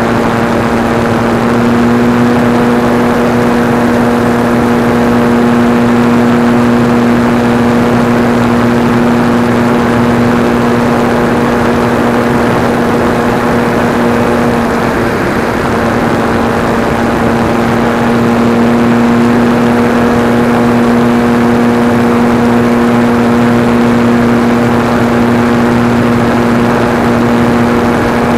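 Motor and propeller of a radio-controlled SIG Senior model airplane in cruising flight, picked up by a camera on board: a steady droning tone over wind rush, dipping briefly in pitch about halfway through.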